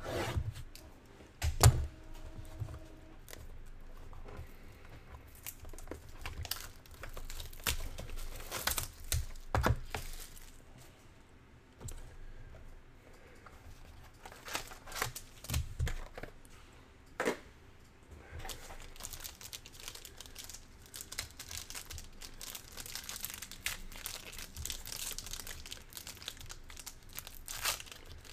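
Plastic wrap and a foil trading-card pack crinkling and tearing as a card box is cut open and a pack is ripped open, with scattered sharp knocks of the box and tool on the table, the loudest about a second and a half in.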